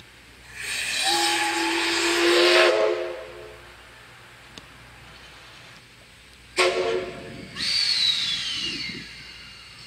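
Steam whistle of the JNR Class C58 locomotive C58 239 blowing: one long blast of about two seconds, then after a pause a sudden short blast followed quickly by a second, longer one, mixed with the rush of steam.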